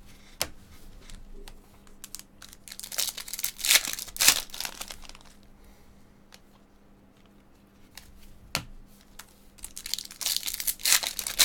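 Foil Topps card-pack wrapper being torn and crinkled in the hands, in two rustling spells, about three seconds in and again near the end, with a few sharp clicks between them.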